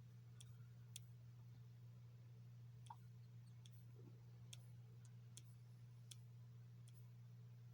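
Near silence: a steady low hum with about ten faint, irregular clicks scattered through it.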